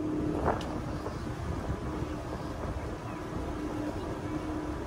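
Small motorboat's engine running steadily under way, with water rushing along the hull. A brief sharp higher sound cuts in about half a second in.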